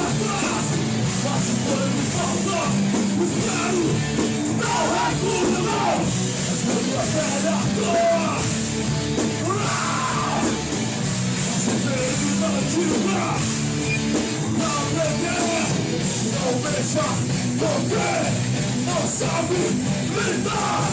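Hardcore punk band playing live, with shouted vocals over the full band.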